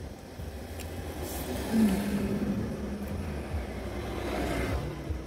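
Low, steady vehicle rumble heard from inside a car, with a vehicle passing that swells and fades about four seconds in.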